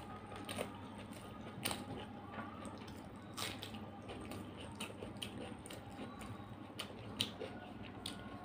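Wet, irregular clicks and squishes of fingers mixing rice on a metal plate, with eating sounds at a close microphone.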